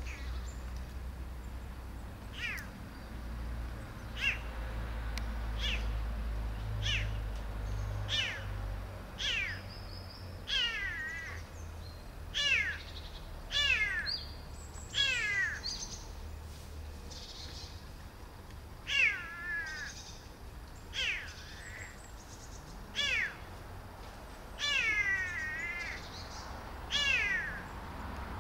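Tiny kitten crying: a long series of short, high-pitched mews, each falling in pitch, every second or two, with a brief pause about halfway through. These are the calls of a kitten left alone without its mother. A steady low rumble runs underneath.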